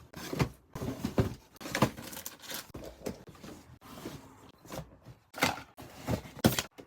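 Boxes and packaging being handled: irregular knocks, taps and rustles, with two louder knocks near the end.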